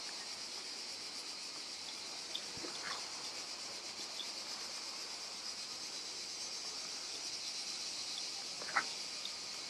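Steady, high-pitched chorus of cicadas, with a few faint ticks and taps, the clearest near the end.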